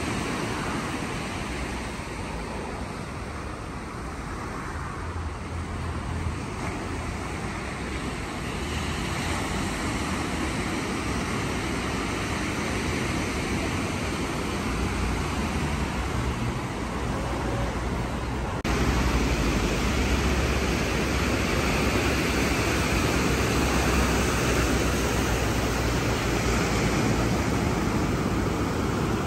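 Ocean surf on a beach, a steady rushing noise with wind rumbling on the microphone. It jumps suddenly louder about two-thirds of the way through.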